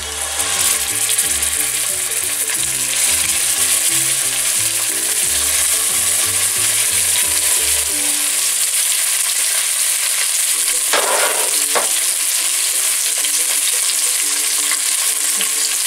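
Rolled beef braciole sizzling in hot extra virgin olive oil in a heavy cast-iron casserole as they are laid in one by one to sear: a steady loud frying hiss.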